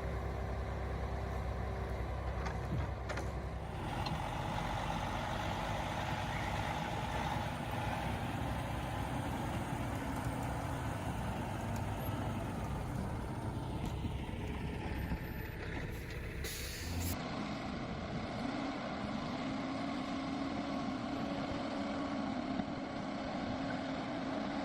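Heavy forestry machine's engine running steadily, working in the forest; the sound changes abruptly about 17 seconds in as a different shot of the machinery begins.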